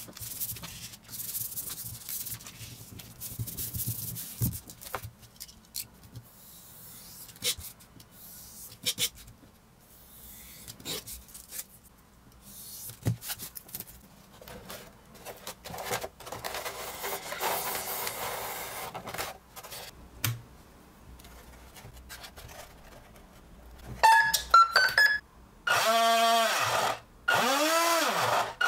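Rubbing and handling of a vinyl sheet. Near the end a small brushed DC motor of 370/380 size gives a few short rising beeps, then spins up and back down in repeated whines as the throttle is worked.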